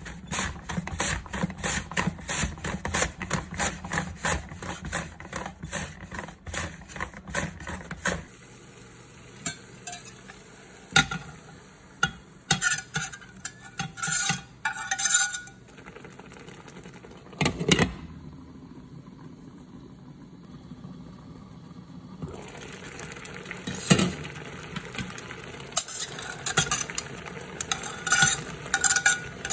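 Sweet potato pushed across a mandoline slicer's blade in quick, even strokes for the first several seconds. Then clinks and scrapes of a metal spatula on a plate and a stainless steel pan as slices are tipped in, with one loud knock a little past the middle.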